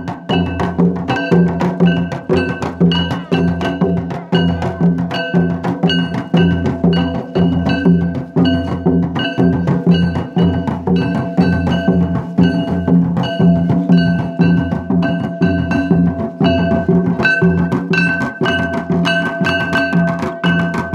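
Santal folk dance music: several two-headed barrel drums beaten by hand in a steady, fast, even rhythm, with hand-held metal cymbals ringing over them.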